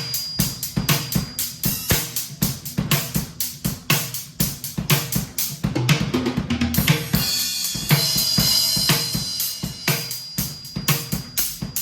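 Drum kit fitted with Remo Silentstroke mesh drumheads and a Kasza low-volume practice cymbal pack, played in a fast, busy groove of kick, snare and cymbals. A cymbal rings over the strokes at the start and again from about eight seconds in, with a run of heavier low drum hits just before.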